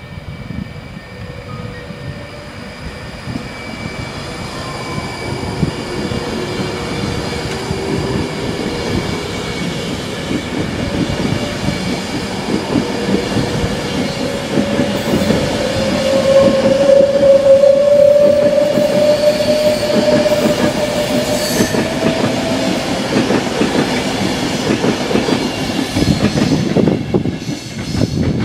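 Virgin Trains Class 390 Pendolino electric train running past along the platform, its wheels rumbling on the rails with a squealing tone that is loudest about halfway through.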